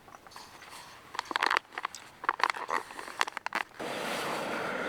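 Irregular crinkling and scraping of a foil freeze-dried meal pouch and a spoon while eating from it. Near the end a steady hiss sets in abruptly.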